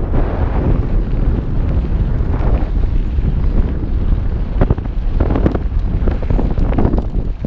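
Heavy wind buffeting on a helmet-mounted GoPro's microphone during a fast mountain-bike descent, over the rush of tyres on loose dirt and gravel. Between about four and seven seconds in, several sharp knocks and clatters come from the bike running over bumps.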